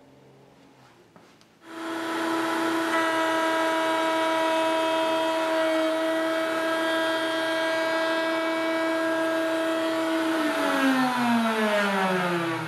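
Table-mounted router with a flush trim bit switching on about two seconds in and running at full speed with a steady high whine. Near the end it is switched off and spins down, the pitch falling steadily.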